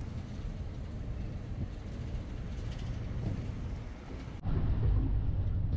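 Low, steady rumble of traffic crossing the bridge overhead, heard from below among its pilings. About four and a half seconds in it jumps abruptly louder.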